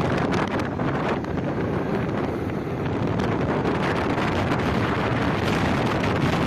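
Wind buffeting the microphone: a steady, loud rumbling rush with no breaks.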